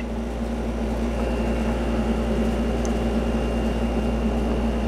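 A steady, unchanging low mechanical hum with a constant drone and no distinct events.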